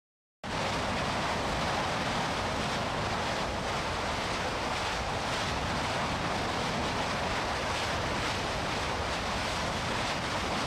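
Kilauea fissure eruption fountaining lava: a steady rushing roar with a faint crackle running through it, cutting in abruptly after dead silence just under half a second in.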